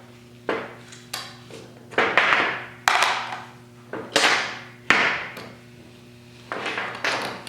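Tools and metal engine parts knocking and clattering as an intake manifold and carburettors are taken apart. The knocks are sharp, come about once a second, and each fades within half a second.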